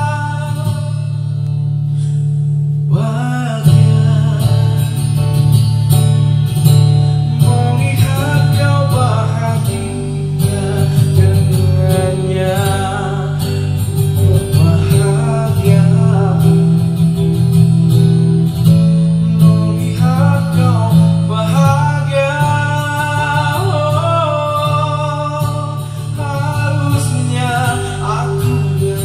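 A man singing a pop ballad into a microphone over a music backing track, heard through a small mixer and PA. He holds a note at the start, pauses, then begins a new sung line about three seconds in.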